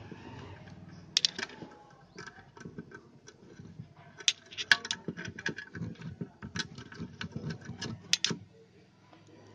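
Irregular small clicks and light metallic taps as a screw and small parts are handled and fitted on an electric iron's housing during reassembly. The sharpest clicks come about a second in, around four and a half seconds and near eight seconds.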